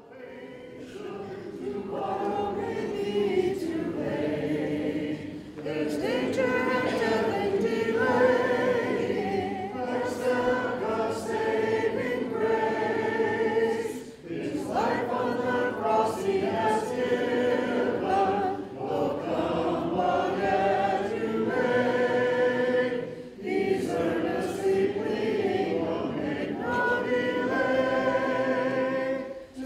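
Congregation singing the invitation hymn a cappella, many voices without instruments, with short breaks between lines.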